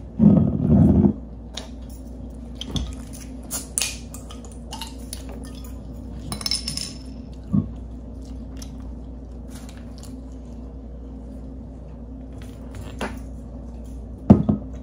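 Close-miked eating sounds: scattered clicks and smacks of biting, chewing and handling sandwiches and chips, with clinks of a glass soda bottle. A louder low sound comes in the first second, a brief hiss about six and a half seconds in, and sharp knocks near the end as the bottle is drunk from.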